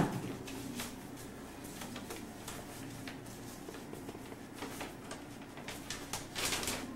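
Paper rustling and crinkling as mail is opened and handled, in scattered soft crackles that grow a little louder near the end; a single sharp knock right at the start is the loudest sound.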